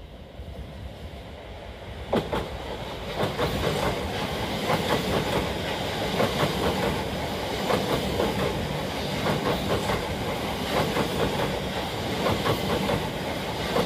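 Great Western Railway passenger train running through the station at speed: a steady rumble that swells as it arrives about two seconds in, with wheels clicking over rail joints as the carriages pass.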